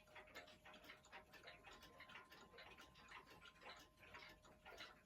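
Seth Thomas mechanical clock movements ticking softly in a quick, uneven pattern, with a faint steady tone underneath that fades out near the end.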